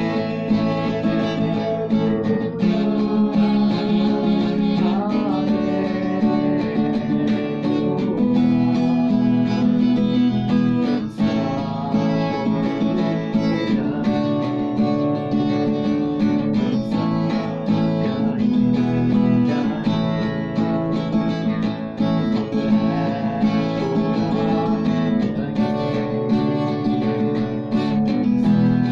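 A man singing a Hindi worship song while strumming chords on a Givson acoustic guitar, steady and without pauses.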